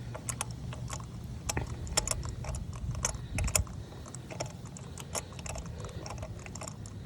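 Irregular metallic clicks and clinks of a spark plug socket on its extensions as they are turned by hand, unscrewing a spark plug that has been broken loose, over a steady low hum.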